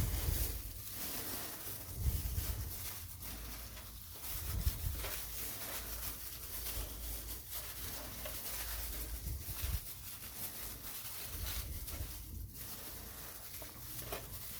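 Quiet kitchen handling sounds: oiled potato wedges being set down side by side on baking paper in a tray, with a few soft low thumps.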